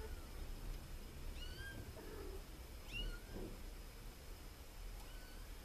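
Kitten mewing: three short, high-pitched mews, one to two seconds apart.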